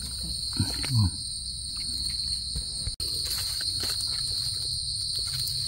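Forest insects trilling, a continuous high-pitched buzz that is faint at first and loud and steady from about halfway through.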